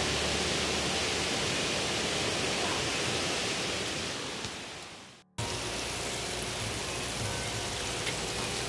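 A steady rushing hiss that fades out about five seconds in, drops to a moment of silence, then cuts back in as a duller, quieter hiss.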